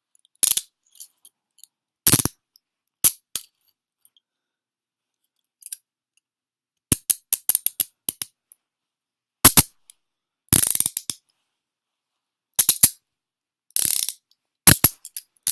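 Smith & Wesson Model 100 handcuffs ratcheting as the cuffs are swung closed and worked, in short bursts of rapid metal clicks with pauses between them. The cuffs are brand new and a little stiff.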